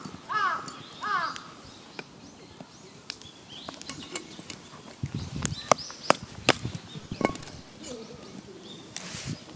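A crow cawing, two harsh caws in about the first second and a half, followed a few seconds later by a run of sharp clicks and knocks.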